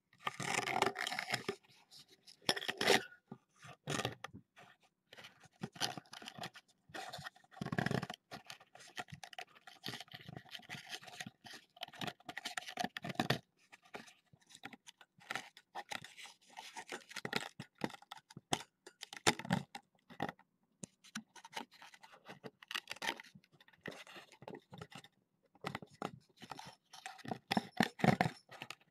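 A kitten rubbing and pawing against the camera right at its microphone: irregular scraping, scratching and crunching rustles, loudest about a second in and again near the end.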